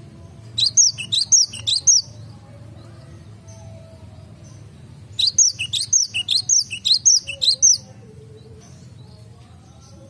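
Cinereous tit (gelatik batu) singing in two bursts of quick, high, repeated chirps: a short phrase near the start and a longer one of about two and a half seconds in the middle.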